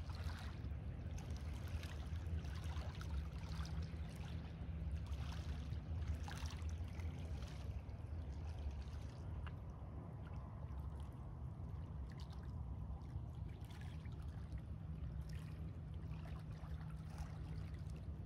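Small waves lapping gently at the edge of a pebble beach, in soft irregular splashes every second or two, over a low steady rumble.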